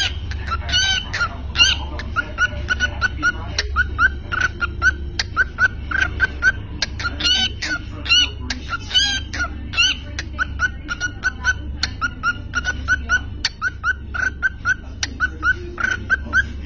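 Cockatiel chirping and chattering: a fast string of short whistled chirps, several a second, mixed with sharp clicks.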